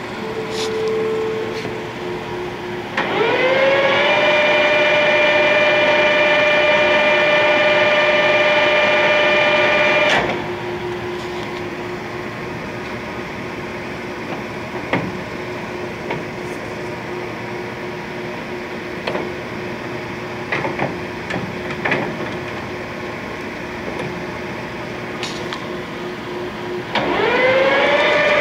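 1968 Clausing Colchester 8050 geared-head lathe spindle starting up, its gear whine rising in pitch and settling to a steady tone about three seconds in. It runs for about seven seconds and then stops. A steady lower hum and scattered clicks follow, and near the end the spindle starts again with the same rising whine.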